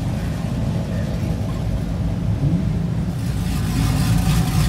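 Motor vehicle engine running with a steady low rumble, growing a little louder with added hiss about three seconds in.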